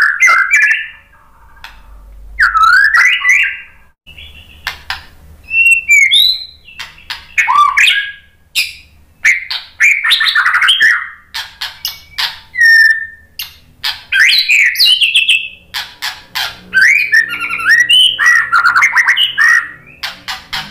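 White-rumped shama (murai batu) singing: a run of loud, varied whistled phrases with quick rising and falling glides, broken by short pauses and sharp clicks.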